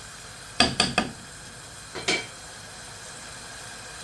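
Onions frying in oil in a pan with a steady, faint sizzle, while a utensil stirs and scrapes against the pan: three quick strokes about half a second in and one more about two seconds in.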